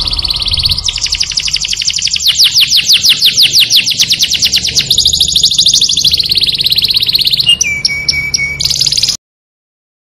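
A small songbird singing rapid high trills, repeated chirps at about ten a second that change pace from phrase to phrase, with a held high note near the end. The song cuts off suddenly about nine seconds in.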